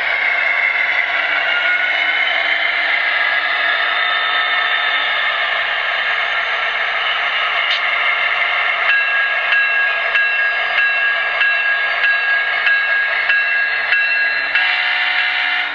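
Sound decoder of an HO-scale Athearn Genesis SD70ACe model diesel playing its simulated diesel engine sound through the model's small speaker, thin and with little bass, as the locomotive moves forward under power. A whine rises in pitch at the start, and a steady high tone joins about nine seconds in.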